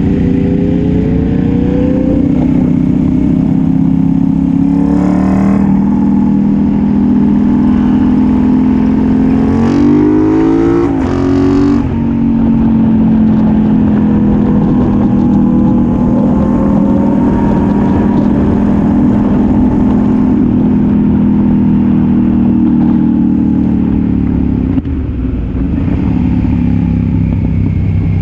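Sport motorcycle engine with an aftermarket exhaust running steadily on the road, heard from the bike itself. About ten seconds in it revs up, rising in pitch for a second or two before falling back, and near the end it settles to a lower pitch.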